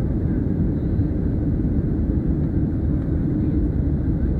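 Airliner cabin noise in flight: the steady low rumble of engines and airflow heard inside the cabin by a window over the wing.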